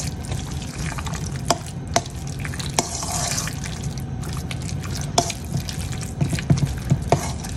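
A spoon stirring a thick mixture of chicken, cream of mushroom soup and sour cream in a stainless steel bowl: wet squishing, with scattered sharp clinks of the spoon against the metal bowl and several close together near the end.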